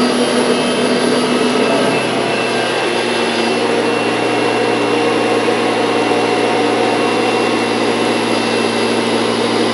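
Vacuum cleaner running steadily, its motor giving a loud, even rushing noise over a constant hum. The pitch of the hum shifts slightly about three seconds in.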